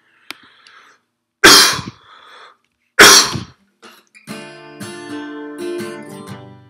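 A man coughs loudly twice, about a second and a half apart. Then, about four seconds in, an acoustic guitar starts playing, its chord notes ringing on.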